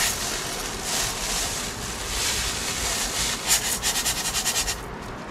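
Dry uncooked rice being scooped and poured into a rice pot, a steady dry hiss of grains, with a quick rapid rattle of grains about three and a half seconds in.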